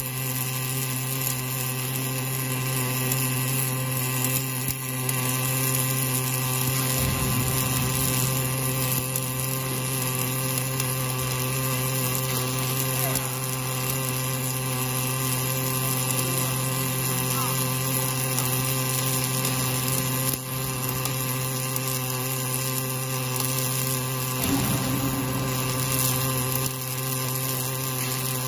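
Welding arc of an automatic narrow deep-groove welding machine, wire-fed, running a continuous girth weld between a hydraulic cylinder rod and its rod end. It is a steady hiss over a steady hum.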